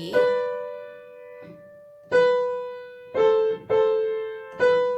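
Piano played slowly in the right hand: five two-note chords (thirds), each struck and left to ring. The first is held about two seconds, and the rest come closer together toward the end.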